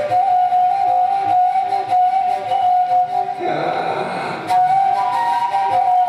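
Flute holding a long, steady note over piano accompaniment. About three and a half seconds in, the note gives way to a breathy rush of air for about a second, then the steady tone comes back.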